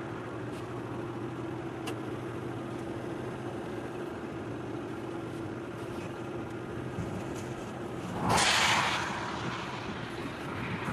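Steady hum of a moving vehicle's engine and road noise. About eight seconds in, a brief loud rushing whoosh lasting about a second stands out above it.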